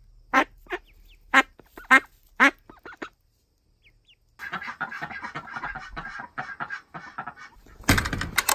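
Khaki Campbell ducks quacking, about six short calls in the first three seconds. After a short lull comes about three seconds of dense crackling noise, and near the end a louder scuffing noise.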